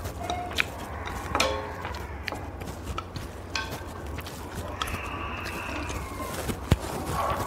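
Eating sounds of instant noodles: noodles slurped and chewed, with chopsticks clicking against bowls and the pot many times.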